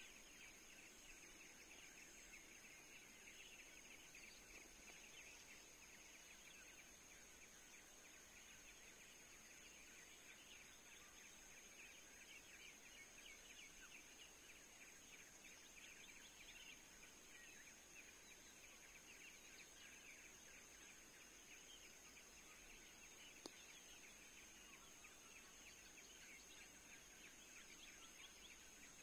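Near silence: faint forest ambience with a steady high-pitched whine and a fine, rapid pulsing chorus like insects, and a single sharp click about three quarters of the way through.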